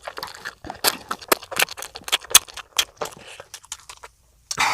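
Close-miked eating sounds: a child chewing, with quick, irregular wet mouth clicks and smacks, then a short, loud noisy burst near the end.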